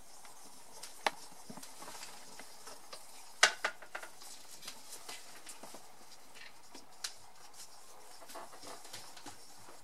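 Plastic stirring sticks scraping and tapping on an Eldon blood-typing card as blood is stirred into each reagent circle, with a few sharp clicks from handling the sticks, the loudest about three and a half seconds in.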